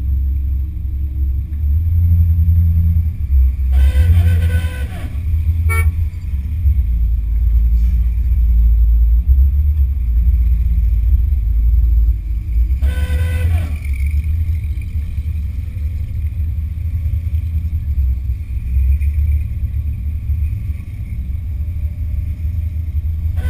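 Classic car driving, heard from a hood-mounted microphone: a steady low rumble of engine and wind buffeting. A car horn honks twice, each blast about a second long, about four seconds in and again about thirteen seconds in.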